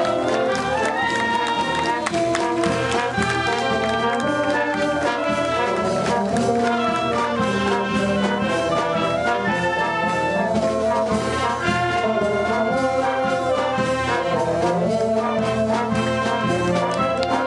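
Band music led by brass, trumpets and trombones playing a continuous melody.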